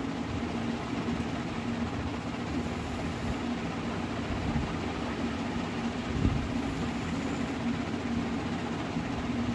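A steady low mechanical hum with a constant low tone, and a soft thump about six seconds in.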